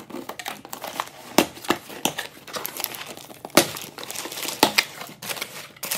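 Cardboard shipping box being opened: packing tape split open and pulled loose and the flaps pried apart. The result is an irregular run of crackling, tearing and sharp snaps.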